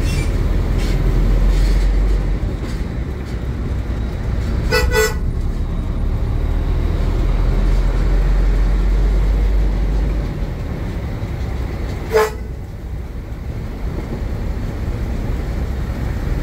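Inside a container truck's cab, the diesel engine drones low and steady, easing off about ten seconds in. A vehicle horn sounds twice: a short toot about five seconds in and a briefer, louder one about twelve seconds in.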